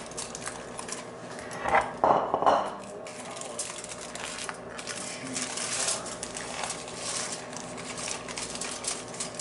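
Aluminium foil crinkling and rustling as it is rolled up by gloved hands around a filling, in an irregular stream of small crackles, loudest about two seconds in.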